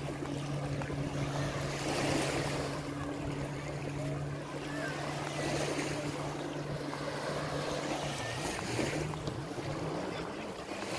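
Small Adriatic Sea waves washing up on a sandy beach, swelling every couple of seconds. A steady low motor drone runs underneath and wavers in pitch near the end.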